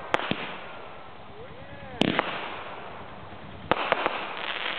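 Fireworks going off: a few sharp bangs, the loudest about two seconds in and a close pair near the end, each trailing off into a crackling hiss.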